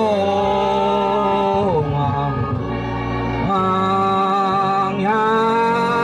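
Choir singing a slow hymn in long held notes, the voices sliding together to a new pitch about every one and a half seconds.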